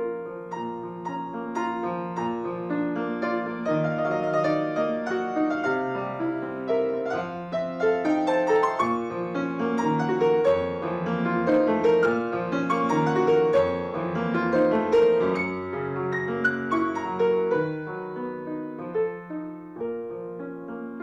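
Background piano music: a solo piano playing a melody over chords, growing fuller in the middle and softening near the end.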